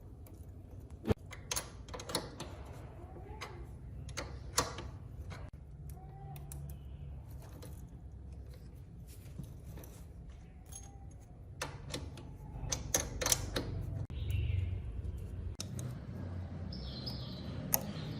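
Irregular light metallic clicks, taps and knocks of small parts and hand tools being handled during motorcycle work, over a low steady hum, with a denser run of clicks about two-thirds of the way through.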